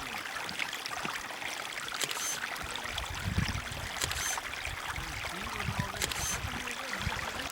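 A small stream of running water, a steady rushing hiss, with a brief brighter hiss recurring about every two seconds.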